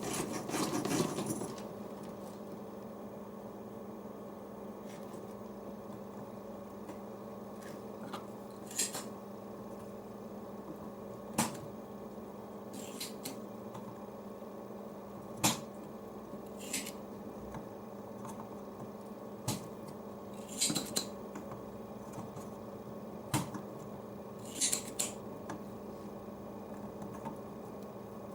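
Scattered short clicks, taps and light scrapes of hand tools and small parts as a car amplifier is taken apart, with a busier clatter in the first second, over a steady background hum.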